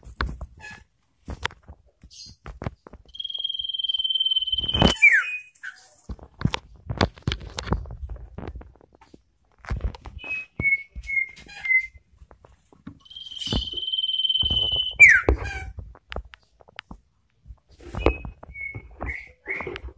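Male iora in breeding condition whistling: two long, steady, high whistles of about two seconds each, each ending in a quick falling slur, with a few short whistled notes in between. Scattered clicks and knocks sound throughout.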